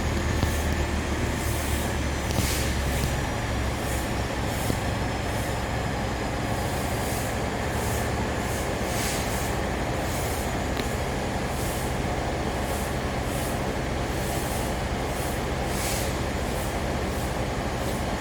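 Heavy truck's diesel engine running steadily, a low hum that drops slightly about three seconds in, with short high hissing pulses coming and going over it.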